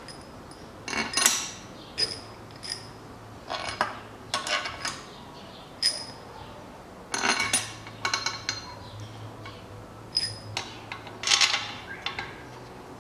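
Steel bolts for the oil pan being handled, clinking against metal: a dozen or so irregular short, bright clinks with brief rattles.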